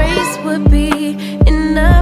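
Background song: a sung vocal over a steady drum beat and bass.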